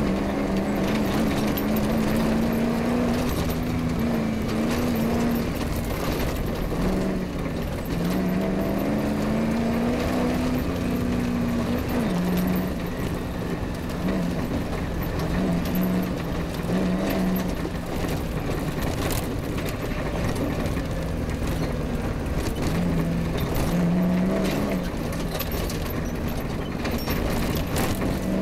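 Off-road rally car's engine under load, its note rising and falling with the throttle as it is driven over rough grassy ground, with scattered knocks and rattles from the car jolting over bumps.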